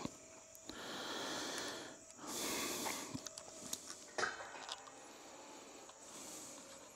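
Two soft breaths close to a clip-on microphone, then a run of small plastic clicks, the sharpest about four seconds in, as a DeWalt cordless-tool battery pack is handled and changed on its wired adapter.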